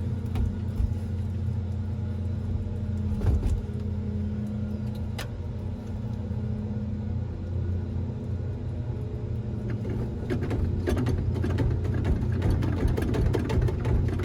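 Car engine during a hard start: a steady low drone that turns rough and uneven about ten seconds in.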